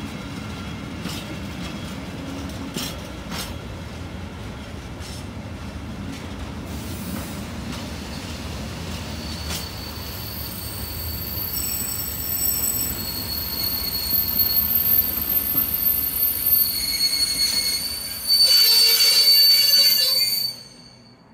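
Container freight train of intermodal flat wagons rolling slowly past, first with a low rumble and occasional clicks over the rail joints. From about halfway through, high steady wheel squeals build up, loudest near the end, then the sound cuts off.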